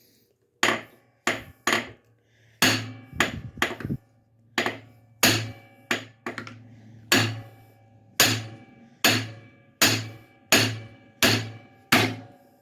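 Hammer blows on the end of a Briggs & Stratton V-twin's crankshaft, about eighteen sharp metallic strikes roughly every two-thirds of a second, each ringing briefly, to knock the stuck flywheel loose while a pry bar lifts it.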